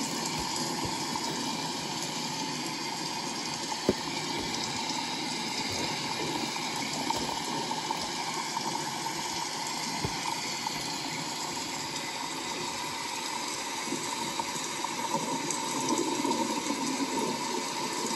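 Steady rushing noise, like running water, with a few light knocks as the cardboard model boxes are handled.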